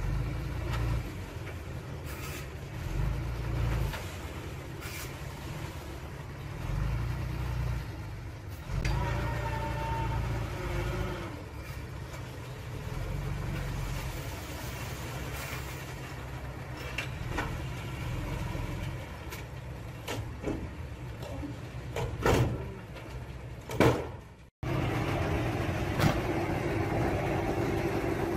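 Dump truck's diesel engine running with revs rising and falling while the raised tipper bed unloads soil, with a short falling whine about a third of the way in and a few sharp knocks later on. About three-quarters in the sound breaks off and another dump truck's engine takes over, running steadily as it drives.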